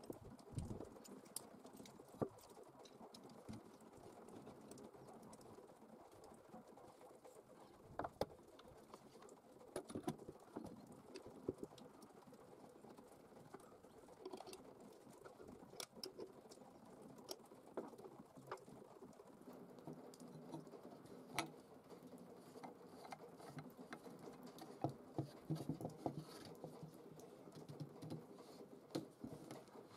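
Faint handling sounds of small metal parts: scattered clicks, taps and a few louder knocks as a steel bracket and nut are fitted and tightened with an open-end wrench on a wooden tabletop.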